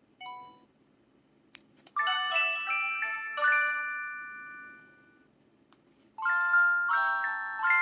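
Electronic chime tones from a PT-L2200's built-in speaker. A faint short blip comes just after the start. About two seconds in, a quick run of bell-like notes rings out and fades, and a similar run starts about six seconds in.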